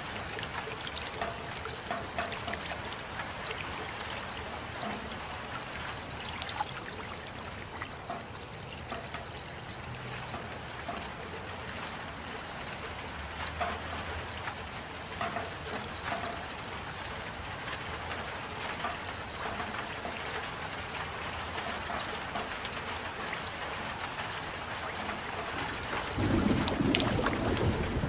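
Steady rainfall with many individual drops ticking close by. A louder low rumble comes in near the end.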